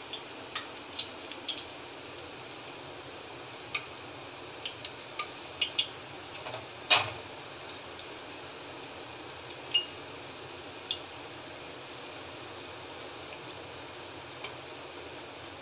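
A steel knife clicking and scraping against an aluminium kadhai as jalebis are turned over in hot oil, over a faint steady sizzle of frying. The clicks come irregularly, thickest in the first half, with the loudest clink about seven seconds in.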